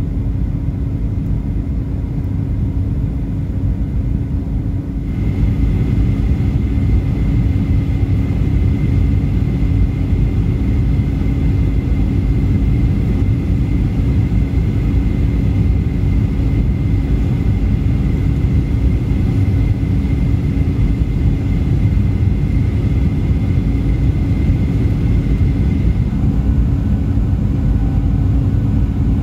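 Cabin noise inside a Boeing 737 descending on approach: the steady rumble of the engines and airflow, with a thin high whine joining about five seconds in and dropping away near the end.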